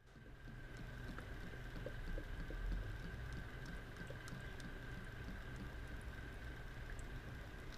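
New engine oil being poured faintly from a bottle into the engine's oil filler, with a low rumble and a thin steady high tone under it.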